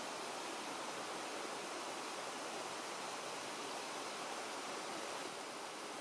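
Small mountain waterfall and its stream running over rock: a steady, unbroken rush of water.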